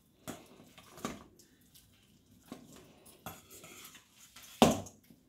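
Hand potato masher pressing boiled taro root in a stainless steel bowl: irregular metal knocks against the bowl, the loudest a little before the end.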